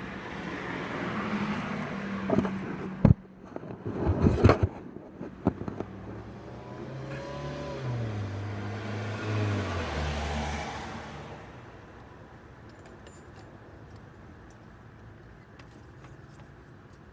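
Car engine running, with two sharp knocks a few seconds in; its pitch then falls in steps and settles to a quieter, steady hum.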